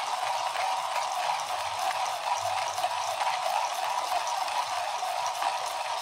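Comandante C40 hand grinder being cranked, its conical burrs crushing espresso beans on an espresso setting: a steady, crackly grinding, smooth with no catching.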